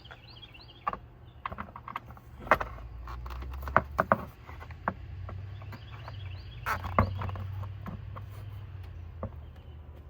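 A plastic engine cover being handled and fitted over a 5.3 V8 intake: a string of knocks and clicks, the loudest about two and a half, four and seven seconds in, over a low rumble. Birds chirp faintly.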